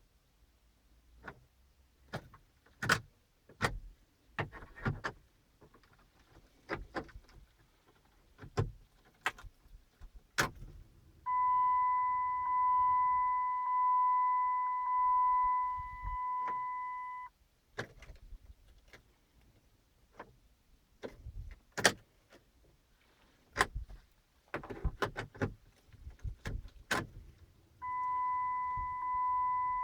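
Scattered clicks and knocks inside a 2011 Volkswagen Routan that won't start, and twice a steady high electronic warning chime that pulses gently and runs for several seconds.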